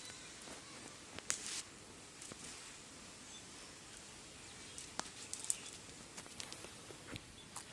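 Cast net being gathered in the hands: faint rustling of the mesh with a few sharp clicks as its lead sinkers knock together, the loudest about five and a half seconds in.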